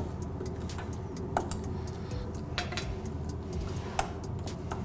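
A metal spoon ticking and scraping against a stainless steel mixing bowl as a thick mashed-chickpea burger mix is stirred, with a few sharper clinks.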